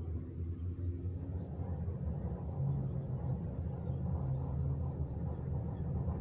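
Steady low rumble inside a moving aerial cable-car cabin as it travels along its cable.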